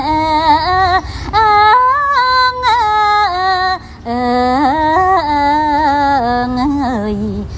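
A woman singing a slow melody with long, wavering held notes and ornamented bends, over musical accompaniment, with a brief break about four seconds in.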